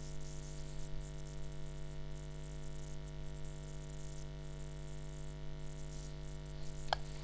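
Steady electrical hum and hiss from the recording setup, with one brief sharp click near the end.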